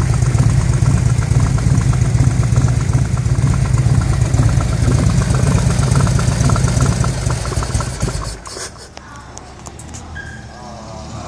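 1998 Harley-Davidson FLSTS Heritage Springer's air-cooled V-twin idling steadily, then switched off about eight seconds in. A few clicks follow in the quiet.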